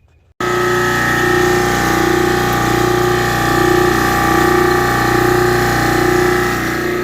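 Mytee Escape electric truckmount carpet-cleaning machine running, a steady machine hum with several held tones and a low pulse about every 0.7 s. It cuts in abruptly about half a second in.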